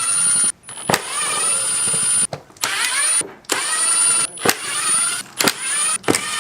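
Cordless drill/driver spinning screws out of motorcycle panels in several short runs, each starting with a whine that rises in pitch and then holds, with clicks between runs.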